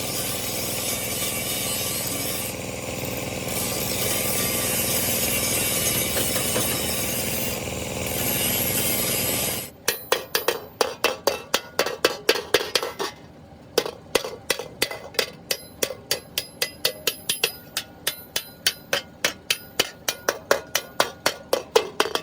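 Steady abrasive grinding or rubbing on metal for about ten seconds. After an abrupt cut it gives way to rapid, repeated hammer blows, about three a second, with a slight ring.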